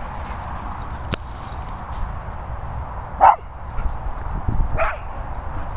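A dog barks twice, about three seconds in and again a second and a half later, in excited barking at a calf.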